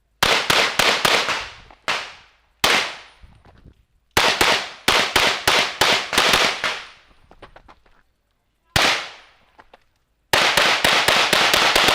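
Open Division competition pistol fired in rapid strings during a practical shooting stage: a quick burst of about six shots, a lone shot, a long fast string, another lone shot, then another rapid burst near the end, with short pauses between positions.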